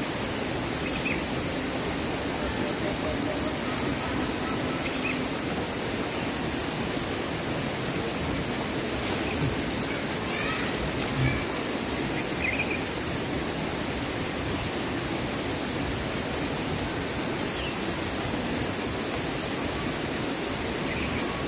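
Steady, high-pitched insect chorus droning without a break, with a few faint chirps scattered through it.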